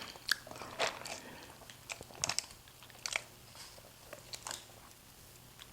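A person chewing and biting food, with soft crunches and wet mouth clicks scattered irregularly.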